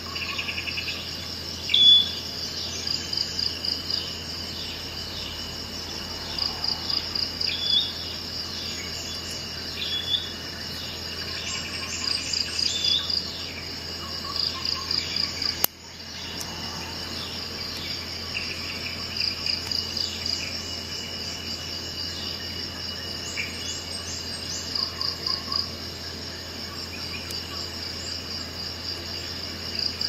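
Crickets chirping in short, even trills with bird calls over them, a steady outdoor chorus. About halfway through it is broken by a sharp click and a brief dip.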